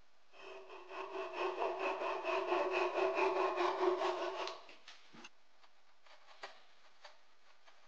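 Small hand saw sawing a wooden peg flush with a wooden handle rail in quick short strokes, with a ringing tone from the blade, stopping about four and a half seconds in. Then a few faint light ticks as a chisel pares the cut end of the peg.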